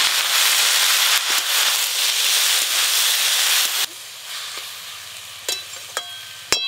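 Chopped water spinach (kalmi shak) sizzling loudly in hot mustard oil in a metal wok, the hiss dropping off suddenly about four seconds in to a fainter sizzle. Near the end a metal spatula clinks against the wok a few times.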